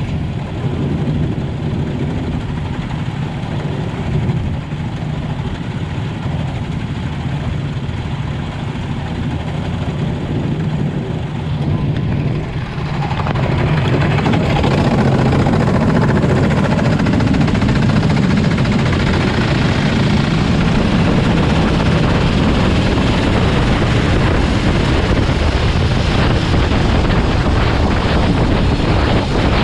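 Engines of many race vehicles running together at the start of a 24-hour endurance race, a steady mass of engine noise that grows louder about 13 seconds in.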